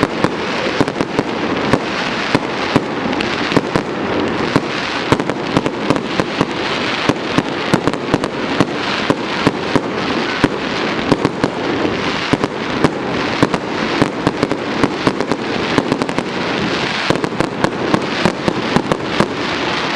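Aerial fireworks display going off in a dense barrage: sharp bangs several times a second over a continuous din of bursts.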